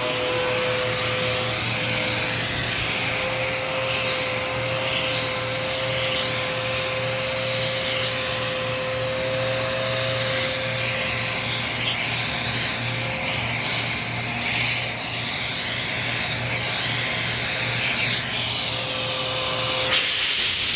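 Dirt Devil Power Max vacuum cleaner running steadily with a crevice tool on couch upholstery: a high, even motor whine over a rushing suction hiss that shifts as the nozzle moves across the fabric.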